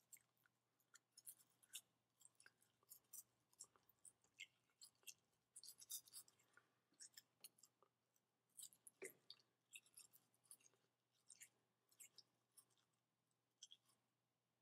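Faint, irregular wet clicks and short scratchy scrapes of a West Highland White Terrier licking and mouthing a toothbrush held to its teeth, with one louder knock about nine seconds in.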